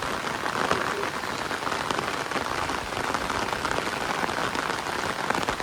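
Heavy rain pouring steadily, a dense patter of drops.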